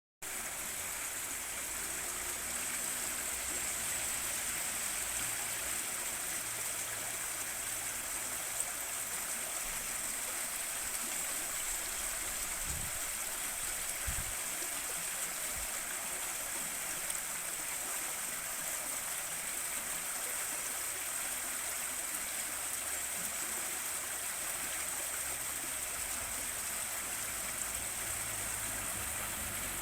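River water flowing steadily over rocks, an even rushing sound with no breaks.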